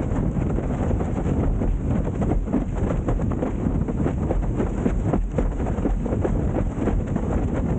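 Wind buffeting the microphone, with the rush and slap of water under a board planing fast over the water. Steady throughout with constant crackling gusts.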